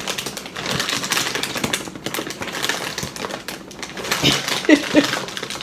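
Crinkling and crackling of a stiff plastic cereal bag being handled and opened, a dense run of small crackles.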